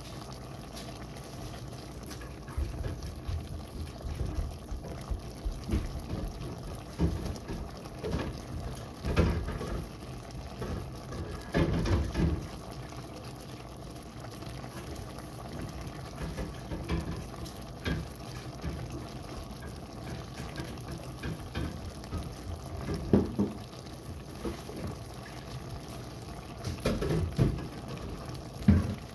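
Elbow macaroni and ground meat simmering in their sauce in a pan, bubbling steadily with irregular small pops, and now and then a louder pop.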